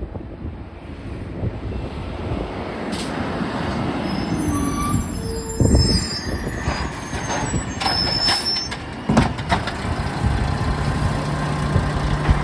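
Garbage truck running while it collects a yard-waste bin: the engine rumbles steadily, with high squeals and several sharp clanks from the lifting arm and bin over the middle seconds. A steady low hum starts near the end.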